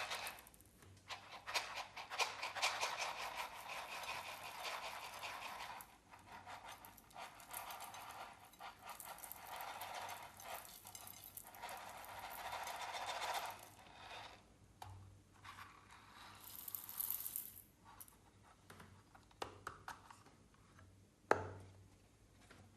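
Clear slime being stirred and mixed by hand with added bits, giving a dense run of crackling, clicking and squelching for most of the first half, then sparser clicks. A single sharp tap sounds near the end.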